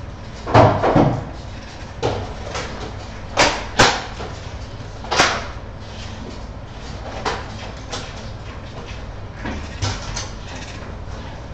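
Irregular knocks and scrapes, about a dozen. The loudest come about half a second in and as a close pair around three and a half seconds in, with fainter ones spread through the rest.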